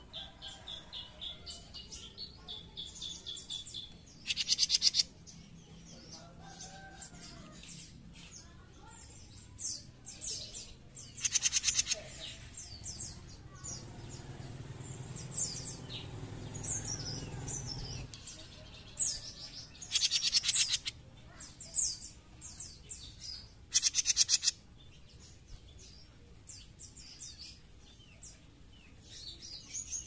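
Caged jenggot mini songbird singing: quick high chirps and a run of rapidly repeated notes, broken about four times by loud, harsh, buzzy rattles.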